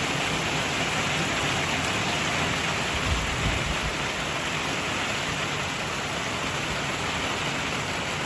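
Rain falling steadily, an even hiss of drops, with a brief low rumble about three seconds in.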